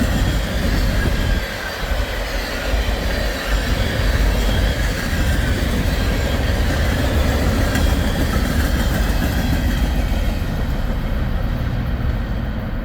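The empty freight cars of a rock (ballast) train rolling past, wheels clattering over the rail joints with some wheel squeal. The sound thins out near the end as the train clears.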